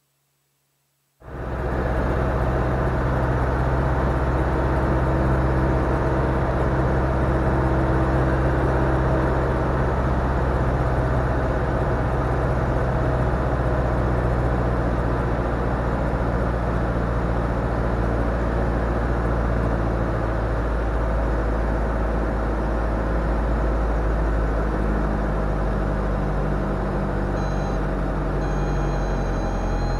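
Cockpit sound of a Diamond DA40 single-engine light aircraft on final approach and landing: a steady engine-and-propeller drone over rushing airflow. It cuts in suddenly about a second in, after silence.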